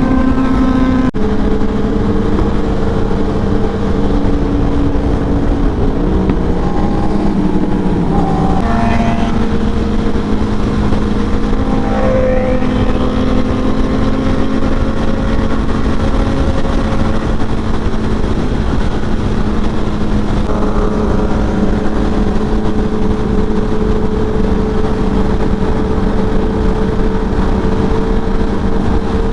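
Honda CBR1000RR SP inline-four motorcycle engine running while riding, with heavy wind and road noise. The engine note is mostly steady, dips and rises a few times between about 6 and 9 seconds in, and climbs again around 12 seconds.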